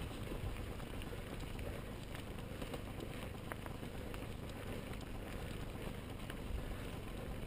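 Mountain bike rolling over a stony dirt track: a steady rumble of tyres and rattle from the bike, with wind on the microphone and a few faint clicks.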